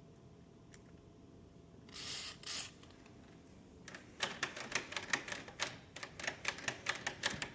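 Two short hisses from an aerosol can of white lithium grease spraying into a door handle's latch mechanism, then a rapid run of sharp clicks, about five a second.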